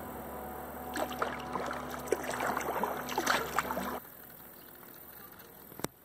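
Kayak paddle dipping into still water, with splashes and bubbling drips over a steady hum. The sound cuts off about four seconds in to a quieter background, with a single click near the end.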